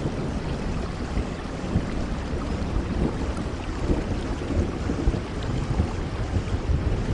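Steady rain falling, with a continuous low rumble of thunder underneath.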